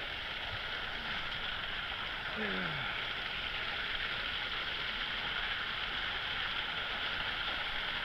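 Creek water rushing steadily over a small rocky cascade. A short falling voice sounds about two and a half seconds in.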